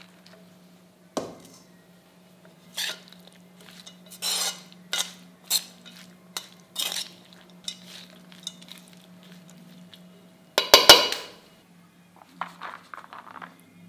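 Metal ladle stirring and scraping rice in a metal pan: a run of short scrapes and clinks, the loudest clatter about eleven seconds in, then softer scraping as the rice is spooned out. A faint low steady hum lies underneath until about ten and a half seconds in.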